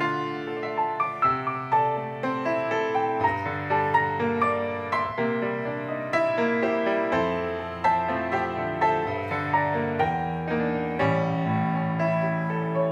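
Grand piano playing a solo instrumental interlude between sung verses of a hymn: a melody of struck notes and chords left to ring over long, held bass notes.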